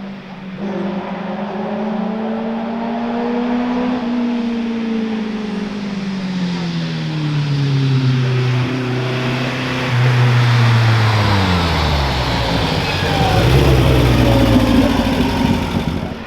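A hill-climb race car's engine coming closer. Its note rises slightly at first, then falls steadily for several seconds as the car slows and grows louder, loudest near the end.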